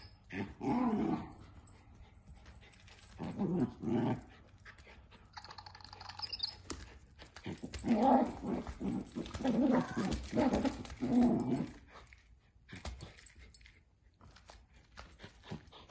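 Scottish terrier puppy play-growling in several bursts while worrying a toy mouse, the longest run of growls about halfway through.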